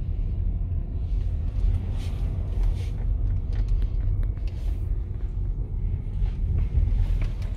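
Low, steady rumble of a car's engine and tyres heard from inside the cabin as it drives slowly.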